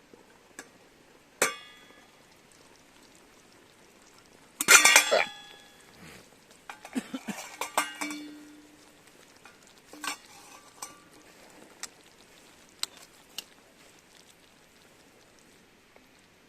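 Metal cookware and utensils clinking and clattering: one ringing clink, then a louder clatter about five seconds in, followed by a run of lighter clinks and a few scattered ticks.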